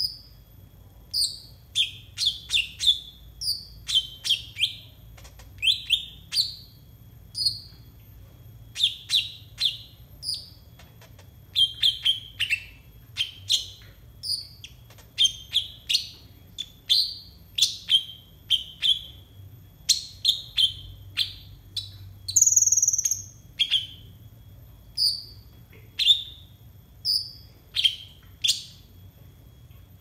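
Brown-throated sunbird (konin) calling: short, sharp, high chirps repeated one or two a second, with one longer, higher call about two-thirds of the way through.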